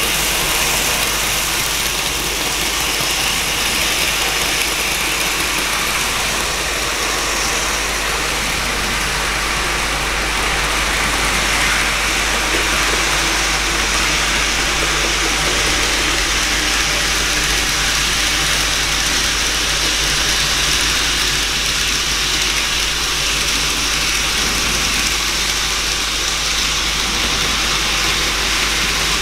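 N gauge model train running on the layout: a steady whirr of the small motor and wheels rolling on the track, over a constant low hum.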